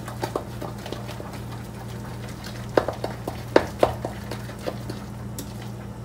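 A utensil stirring butter and sugar in a ceramic mixing bowl, with scattered light knocks and scrapes and a few sharp clinks against the bowl about halfway through.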